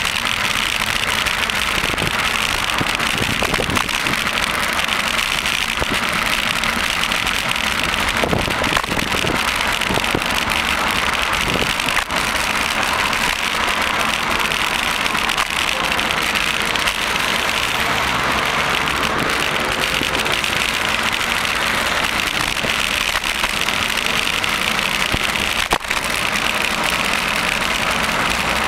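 Road traffic heard from a moving bicycle: cars running alongside under a steady noisy rush from the ride. There are a couple of sharp clicks, about twelve seconds in and again near the end.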